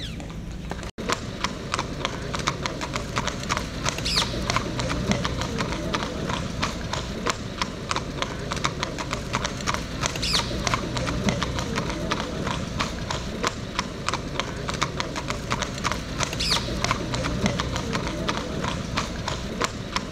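Horse's hooves clip-clopping at a steady walk, a rapid run of hard clicks, with a short high squeak about every six seconds.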